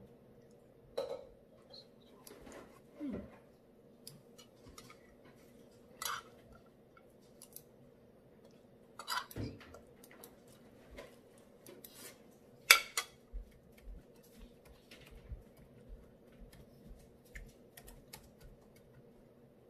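Light clicks and taps of a metal spoon and fingers against a ceramic plate during a meal, scattered and irregular, with one sharp clink about thirteen seconds in as the loudest. A faint steady hum runs underneath.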